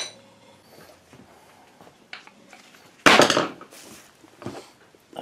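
A short metallic clatter about three seconds in, with a few lighter clicks and knocks before and after it.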